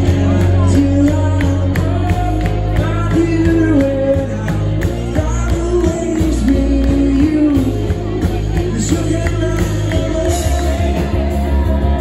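Live band playing loudly: a lead singer's voice over heavy bass and a steady drum beat, heard from among the audience.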